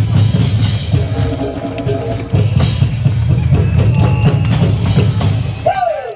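A live percussion troupe drumming a fast, driving rhythm with deep bass-drum strokes, with melodic music playing along.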